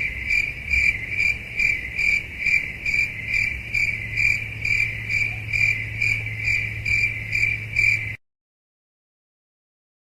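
Crickets chirping, the stock 'awkward silence' meme sound effect: a steady run of evenly spaced chirps, about two and a half a second, over a faint low hum. It cuts off suddenly about eight seconds in.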